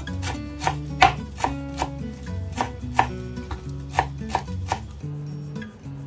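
A run of sharp knocks, about two to three a second, that stop about five seconds in, over background music with a stepping bass line.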